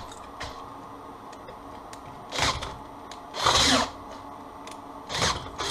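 Cordless drill turning a homemade roller wire stripper, a steady hum with four louder surges in the second half, the longest about three and a half seconds in. It labours as 2.5 mm² copper wire, too thick for the current roller gap, gets squashed flat instead of having its insulation cut.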